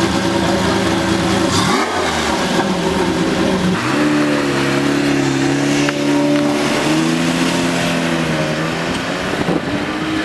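Lamborghini V12 engine running and being revved. A steady note is followed by a quick blip that falls away about two seconds in. From about four seconds in the engine holds a steady raised rev, its pitch wavering, then eases near the end.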